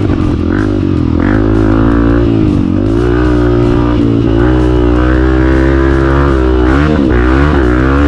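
Honda CRF250F dirt bike's single-cylinder four-stroke engine revving up and down repeatedly while it is ridden along a dirt trail, with background guitar music playing over it.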